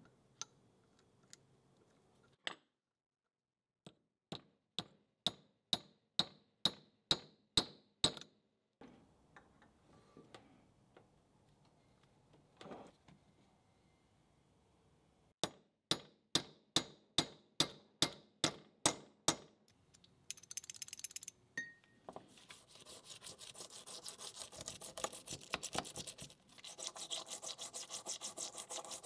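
Sharp metallic clicks with a ringing tone, about two a second, in two runs of around ten each from the steel parts of an SKS rifle bolt being handled. In the last seven seconds a wire brush scrubs the cosmoline-caked bolt in solvent, a dense, continuous scratching.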